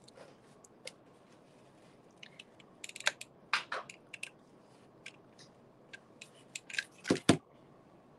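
Handling noise of craft work on a tabletop: small clicks and rustles of wire and tools, with a few sharper taps and a heavier double knock about seven seconds in, as a hot glue gun is set down.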